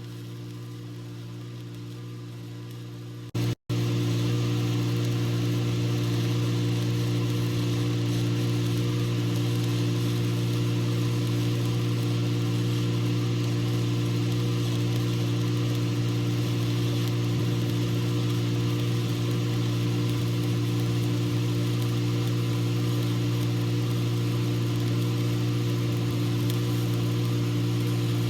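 Welding machine running with a steady low hum. About three and a half seconds in, after a brief dropout, it gets louder and a steady hiss joins it, fitting a stick-welding arc burning.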